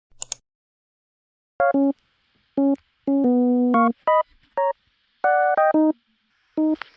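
Background music: a run of short, separated keyboard chords with brief silences between them, after a brief click near the start.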